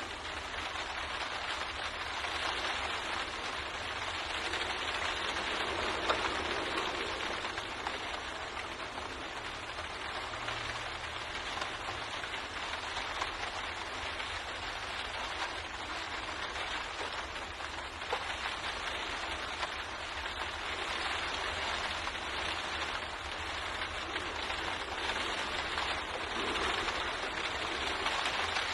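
Steady rain pattering against a window pane, an even hiss with the odd single drop ticking louder.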